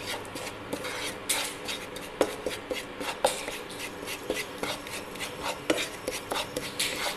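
A spatula scraping and stirring thick ground tomato paste around a nonstick frying pan, in quick irregular strokes with a few sharper scrapes.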